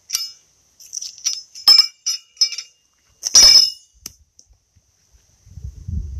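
Steel pitching horseshoes clinking and ringing against each other as they are gathered up, a string of sharp metallic clinks with the loudest about three and a half seconds in. A low rumble starts near the end.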